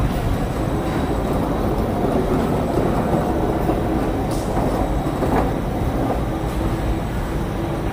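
Steady low rumble and hiss of ambient noise under a covered market hall's glass-and-iron roof, with no distinct events standing out.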